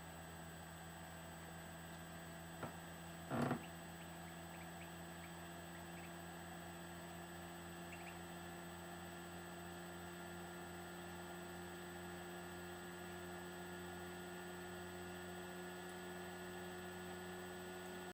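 Faint steady electrical hum, with a single click a little before three seconds and a brief louder knock or rustle at about three and a half seconds.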